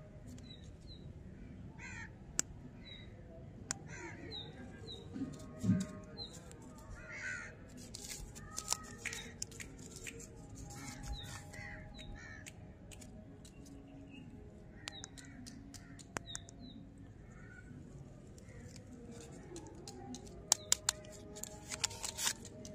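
Paper candy wrappers and tattoo inserts crinkling and clicking as they are handled and peeled, with a run of louder crinkles near the end as a gum bar is unwrapped. Birds call throughout, with many short chirps.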